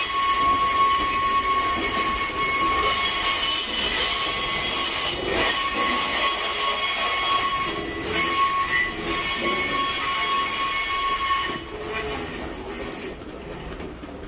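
Wheels of a JR 189 series electric train creeping through depot trackwork, squealing steadily in several high pitches, with a few clacks over rail joints. The squeal fades noticeably near the end.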